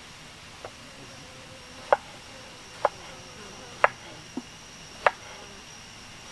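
Cleaver slicing tomatoes on a wooden cutting board: sharp knocks of the blade striking the board, about one a second, six in all, two of them softer.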